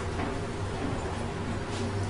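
Steady low hum of interior room noise in a ship's enclosed mess deck, with a few faint clicks.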